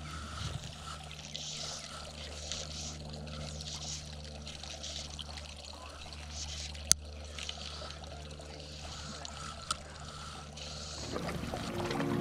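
Quiet outdoor ambience: a steady low hum with a faint hiss, broken by one sharp click about seven seconds in and a fainter click near ten seconds. Music fades in near the end.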